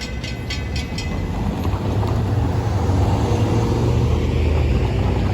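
Low, steady rumble of a passing heavy vehicle, swelling about a second and a half in and then holding, with some wind on the microphone.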